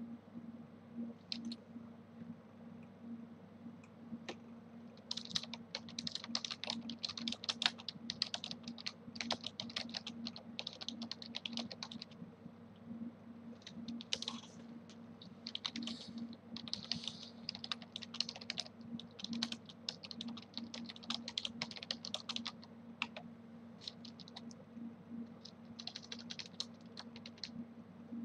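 Typing on a computer keyboard: runs of quick keystrokes broken by short pauses, starting about five seconds in, over a faint low steady hum.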